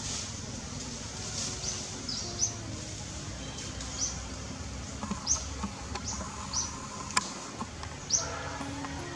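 Birds chirping in the trees: short, high chirps about once a second, with one sharp click about seven seconds in.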